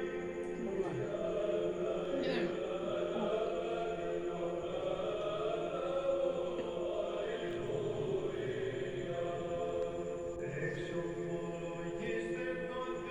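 Background music of sustained choir-like voices holding long, steady chords.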